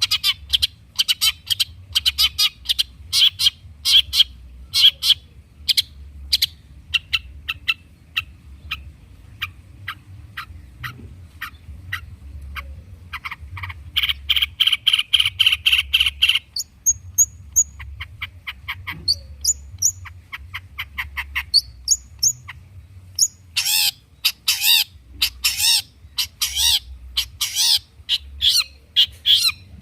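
Long-tailed shrike singing loudly in a fast, varied run of sharp chips, with a rapid rattle partway through, then short high whistles and harsh chattering near the end. The song is a 'full isian' shrike song, packed with imitations of other birds.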